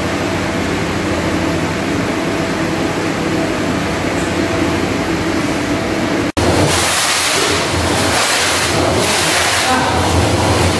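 A steady mechanical hum. After a cut about six seconds in, a louder rushing noise takes over, its hiss swelling and fading.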